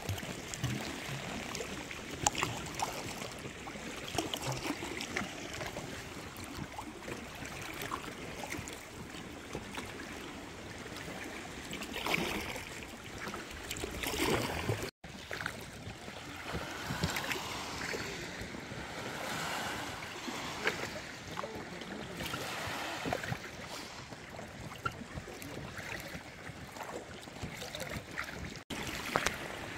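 Water lapping and splashing around a kayak as it is paddled through shallow water, with irregular small splashes and some wind on the microphone.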